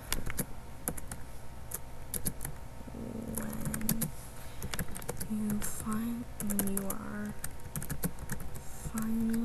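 Typing on a computer keyboard: quick, irregular key clicks, with a quiet voice humming a few short notes from about three seconds in.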